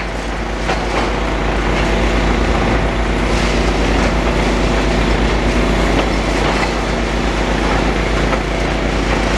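Demolition excavator running steadily, with scattered knocks and clatter as it chews into a masonry wall.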